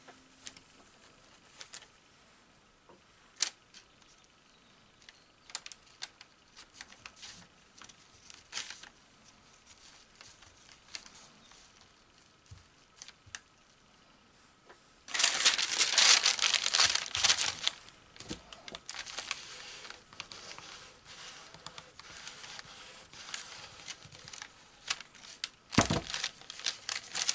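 Faint rustles and scattered light clicks as sparkly Angelina fibres are teased apart and laid over a rubber stamp. About halfway through, loud crinkling begins as a paper sheet is laid over and smoothed flat by hand. It carries on more quietly, with another loud crinkle near the end.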